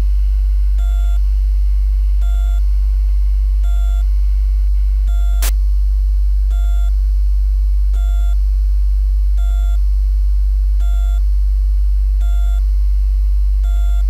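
Synthesized emergency-broadcast soundtrack: a loud, steady low drone with a short electronic beep about every second and a half, and one sharp click about five seconds in.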